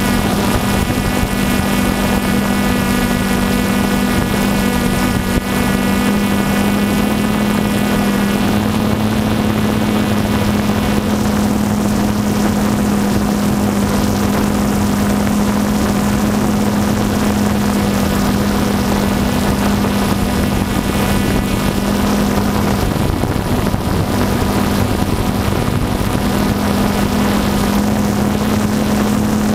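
Multirotor drone's motors and propellers running steadily while it hovers, heard from its onboard camera: a steady hum with a whine of overtones above it and a broad hiss, the pitch shifting slightly a few times.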